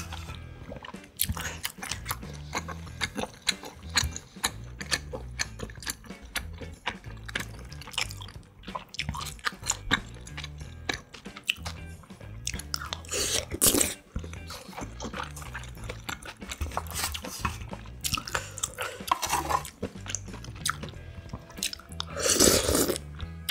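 Close-miked eating of spicy ramyun with rice cakes and dumplings: slurping broth, chewing, and spoon clicks against the metal pot, with two longer slurps about 13 and 22 seconds in.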